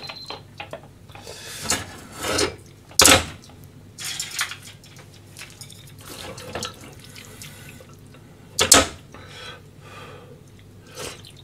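Liquid sloshing as a hand and chopsticks fish through simmered beef tendon in broth in a stainless steel pot. There are two sharp knocks, one about three seconds in and one about three quarters of the way through.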